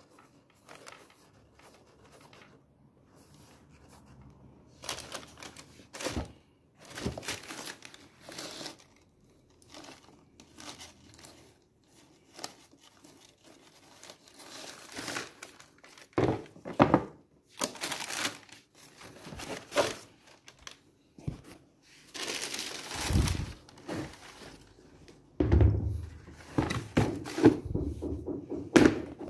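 Tissue paper crinkling and rustling in irregular bursts as sneakers are handled in their cardboard shoebox, with occasional soft thunks from the shoes and box. The thunks are louder and more frequent near the end.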